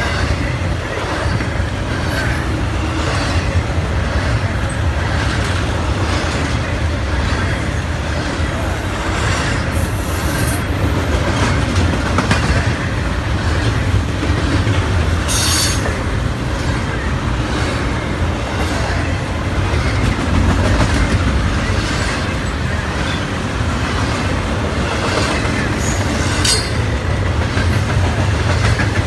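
Norfolk Southern intermodal freight train's double-stack container cars rolling past at close range: a steady heavy rumble of steel wheels on rail, with repeated clicks over the rail joints. There are a few brief high squeals from the wheels, about ten seconds in, near the middle and near the end.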